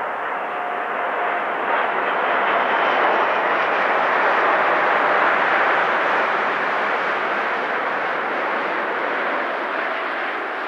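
Airbus A380's four Engine Alliance GP7200 turbofans at approach power, gear down, passing low overhead: a broad jet roar that swells to its loudest about halfway through and then slowly fades as the aircraft moves away.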